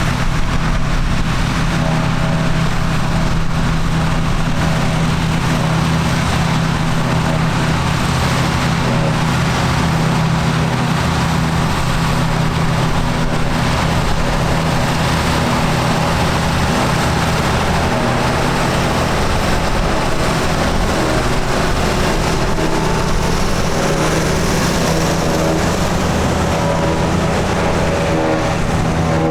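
Vintage tractor engine running steadily, with a constant low hum and a pulsing rumble underneath.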